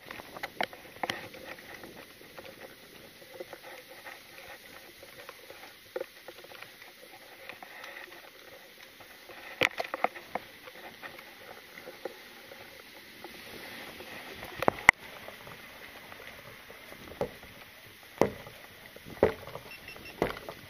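Irregular clicks and knocks from gear and the camera mount jostling as someone walks carrying a fishing rod, over a low background hiss.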